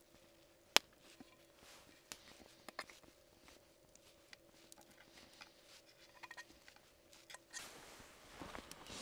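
Fork clicking and scraping on a metal plate while eating, with one sharp tap about a second in. Near the end, crackling of a wood fire burning in a small Firebox folding stove.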